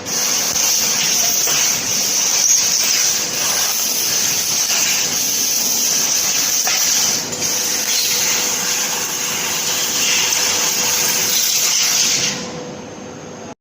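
CNC laser cutting machine at work, a loud steady hiss with a faint steady hum under it, cutting off about twelve seconds in.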